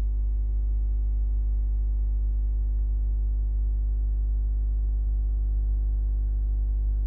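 Steady low electrical hum with a stack of fainter overtones above it, unchanging throughout; no sound of the spatula in the pan comes through.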